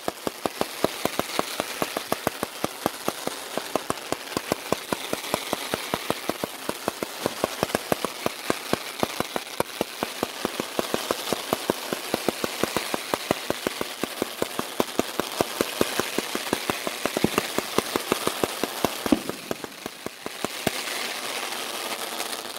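500 g zipper firework cake (Red Lantern Fireworks Dark Knight) firing its shots in rapid succession, several sharp pops a second over a steady hiss. The volley breaks off about nineteen seconds in, a few more shots follow, and then only the hiss remains.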